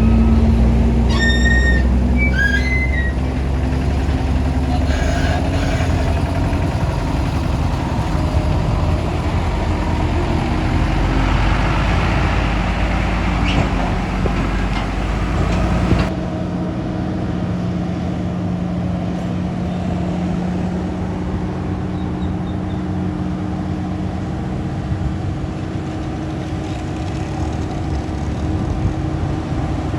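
Volvo multi-axle heavy truck's diesel engine running steadily under a low rumble, with a few short high-pitched sounds near the start. The sound changes abruptly about halfway through.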